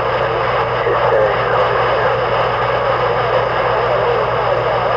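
A vehicle engine running steadily: a constant low hum under an even wide hiss.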